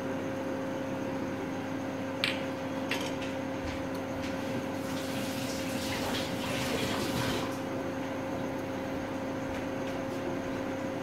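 Uttapam batter sizzling softly in a nonstick frying pan as it cooks, over a steady low hum. There are two small clicks about two and three seconds in, and the hiss grows louder for a couple of seconds around the middle.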